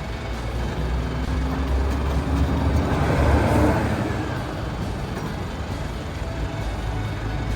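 A road vehicle running with a steady low rumble, swelling louder about three seconds in and easing off again.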